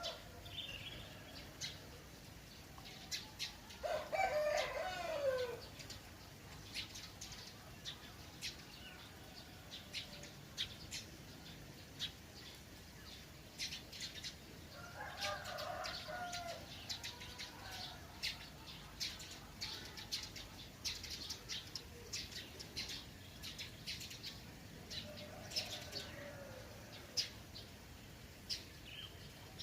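Roosters crowing three times, about four seconds in, midway and near the end, each crow trailing off downward. Small birds chirp in short, quick calls throughout over a faint steady trickle of water.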